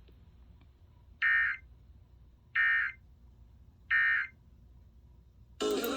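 Emergency Alert System end-of-message data bursts received over the radio: three short, harsh digital warbles about a second and a half apart, the coded signal that closes the severe thunderstorm warning. Near the end the station's audio, with music, comes back in.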